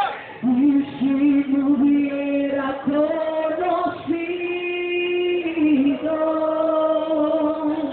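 A woman's voice slowly singing a worship song without instruments, holding long notes one after another, with the congregation singing along.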